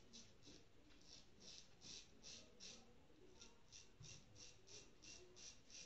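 Pop Razor double-edge safety razor scraping through lathered stubble on the neck in short strokes, faint, about three a second with a brief pause near the middle.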